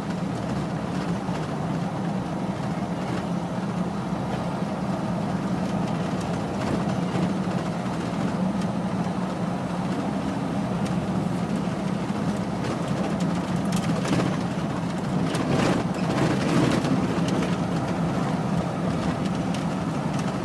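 Steady engine and road noise heard inside a car's cabin while driving on a rough road, with a few knocks and rattles from bumps about two-thirds of the way through.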